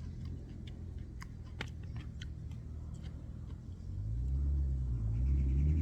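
Low rumble with a few faint clicks, then about four seconds in a motor vehicle's engine grows louder and rises in pitch as it speeds up.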